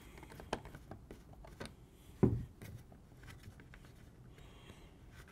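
Faint clicks and scrapes of a screwdriver backing out the top length-of-pull screw of a Magpul Hunter X-22 polymer rifle stock, with one louder knock about two seconds in.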